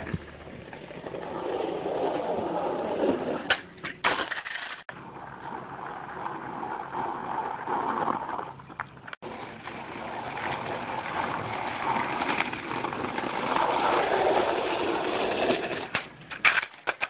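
Skateboard wheels rolling on concrete, swelling and fading as the board passes, with a few sharp clacks of the board popping and landing about four seconds in and near the end.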